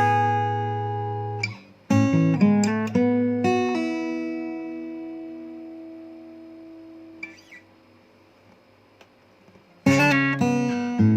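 Takamine ED05SC-NS acoustic guitar being played: picked notes and chords, then a chord left to ring and die away over several seconds. After a short near-silent pause the playing starts again near the end.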